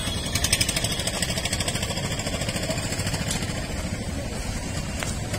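A motor vehicle engine idling steadily, with a fast low pulsing.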